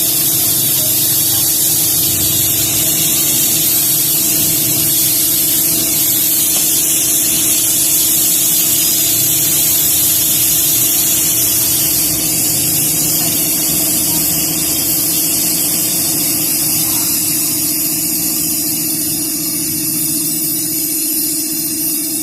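Steady hissing with a constant mechanical hum underneath, unchanged in level throughout.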